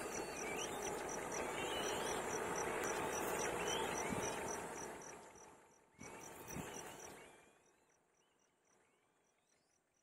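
Downy kite nestlings begging with thin rising cheeps over the scrabbling and rustling of the twig nest as they are fed. It is loud for the first five seconds, comes again briefly about six seconds in, and then fades. A steady high insect pulse, a few beats a second, runs behind.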